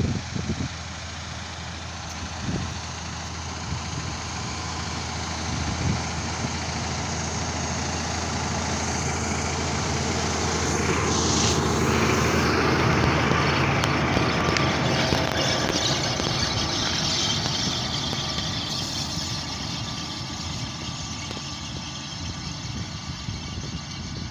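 Claas Axion 850 tractor's six-cylinder diesel engine running steadily while pulling an Amazone AD-P seed drill across the field. It grows louder as the tractor passes close by about halfway through, then fades as it moves away.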